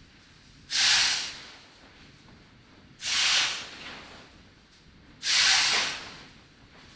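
Sound installation giving out three bursts of hiss, about two and a quarter seconds apart. Each starts sharply and fades away over about a second.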